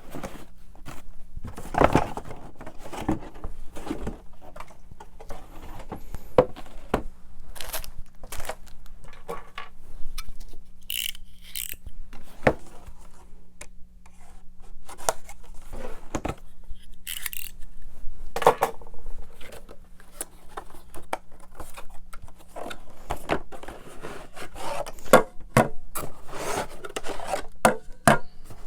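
Plastic LEGO pieces and baseplates being handled and set down on a table: irregular clicks, knocks and scrapes, with a few brief rustles.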